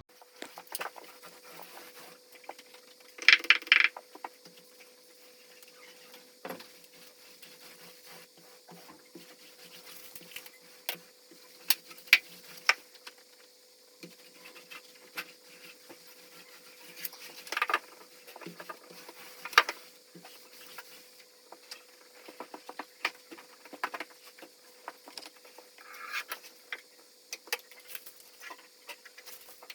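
Scattered light knocks, taps and scrapes, with a few louder clattering hits about three and a half, seventeen and twenty seconds in, over a faint steady hum.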